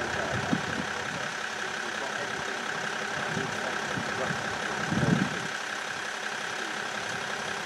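Distant Lockheed TriStar on approach: a steady jet roar from its Rolls-Royce RB211 turbofans with a steady whine over it. A brief louder low sound comes about five seconds in.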